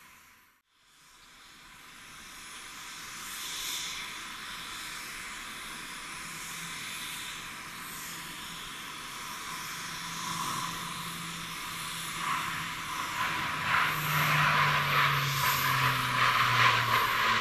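Four-engine turboprop drone of a C-130J Super Hercules, growing steadily louder as the aircraft comes closer on a display pass. Near the end the propeller hum drops in pitch as it goes by.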